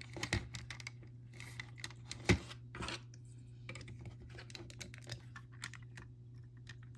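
Plastic Lego bricks clicking as long 1x16 bricks are fitted and pressed down onto the studs of a model's frame. A quick run of small clicks and snaps, the loudest about two and a half seconds in, thinning out later as the hand keeps pressing, over a steady low hum.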